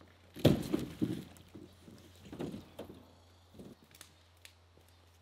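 Canoe being set down on the ground: a loud hollow thump about half a second in, followed by a few smaller knocks and scrapes as it is shifted into place.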